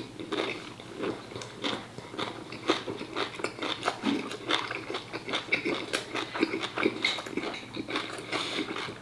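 Close-up chewing of braised pork offal and pork hock: many short, irregular wet mouth clicks and bites.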